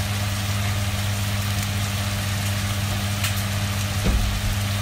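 Chicken sisig sizzling in a frying pan over a steady low hum, with a knock about four seconds in.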